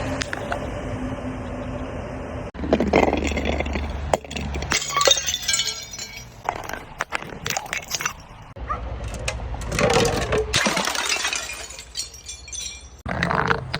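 Glass bottles breaking and being crushed: cracks, crunching and the clink of shards, in several short clips joined by sudden cuts.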